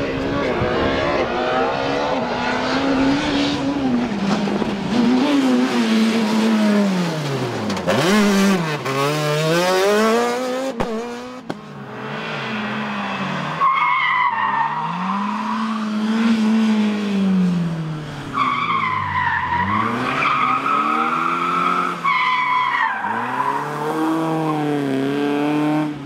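Rally car engines revving hard at full throttle, the pitch climbing through each gear and dropping at every shift and lift, with a short break about eleven seconds in. In the second half a BMW E30 3 Series rally car revs hard through a tight corner.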